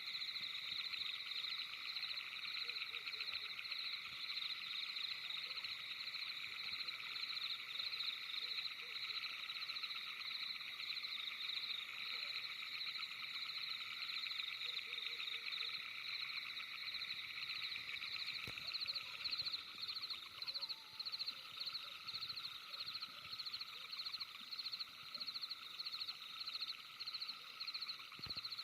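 A night chorus of calling frogs: dense, steady trilling in several pitch layers, with a high pulsing call that repeats about twice a second in the second half.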